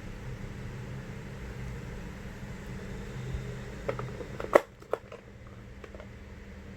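A steady low hum, then three sharp clicks about four to five seconds in, the middle one loudest. After it the hum drops to a quieter hiss.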